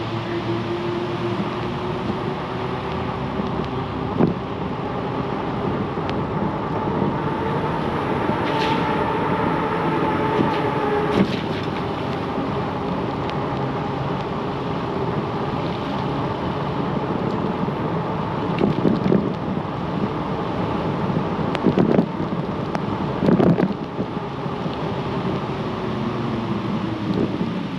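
Aventon Adventure e-bike under way: a steady whine from its rear hub motor that drifts slowly up and down in pitch with speed, over tyre and wind noise. A few sharp knocks from bumps in the path come through about 4, 11, 19, 22 and 23 seconds in.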